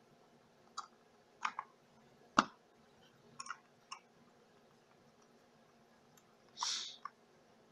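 Scattered small clicks and taps of a precision screwdriver and its bit being worked at a plastic HO scale model locomotive, the sharpest about two and a half seconds in. A brief scrape comes near the end.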